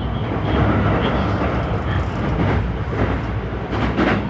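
JR West 223 series 5000 electric train: a steady low rumble under an even noise haze, with a few short louder noises in the second half.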